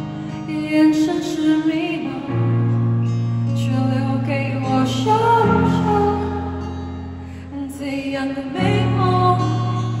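Live pop band playing a slow, tender song in an arena: a woman singing over acoustic guitar, with sustained bass notes that change chord about every three seconds.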